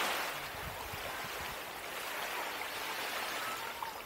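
Small waves washing on a sandy lakeshore beach, a soft, steady rush of water that swells at the start and then eases.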